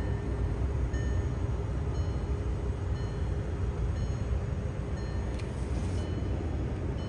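Steady low rumble and hiss inside the cabin of a 2008 Volkswagen R32, its 3.2-litre VR6 engine idling. A brief high hiss about five and a half seconds in.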